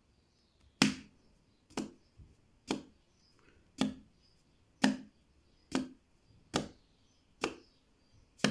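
Slow footsteps on a hard floor, about one step a second, the sound of someone coming.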